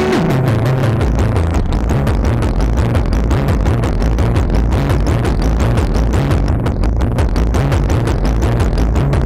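Gritty techno sequence from a modular synthesizer patch mixed through a Doepfer A-138m matrix mixer: a bass line stepping between a few notes over a steady deep low end, with fast, dense ticking hits on top.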